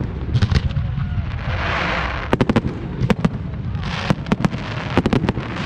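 Aerial fireworks going off: clusters of sharp bangs and cracks in quick succession, with stretches of crackling fizz from crackling stars between the volleys.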